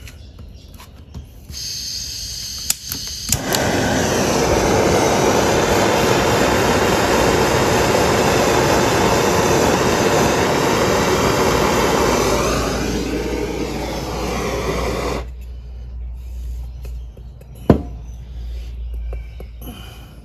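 Hot-air heat gun blowing to shrink and melt a solder-seal wire connector: it switches on with a whine about a second and a half in, steps up to a loud steady rush a couple of seconds later, eases down about twelve seconds in and cuts off around fifteen seconds. A sharp click follows a couple of seconds later.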